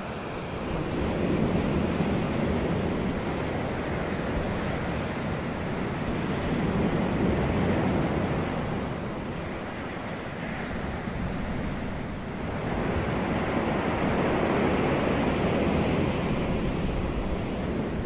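Ocean surf washing up a beach: a steady rush of noise that swells and fades with each wave, three surges in all.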